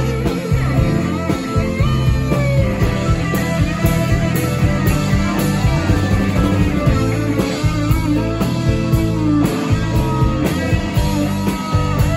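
Live rock band playing loudly: an electric guitar lead with bending notes over bass and steady drums.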